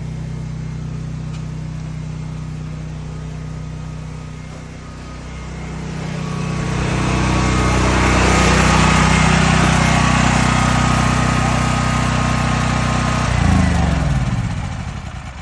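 Portable home generator's small gasoline engine running steadily and growing louder. About thirteen seconds in it is shut off, its pitch falling as it winds down to a stop.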